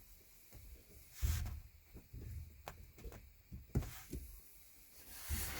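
Scattered short clicks and knocks of hand tools on metal parts as bolts on the shift linkage are tightened, with a louder bump and rustle about a second in.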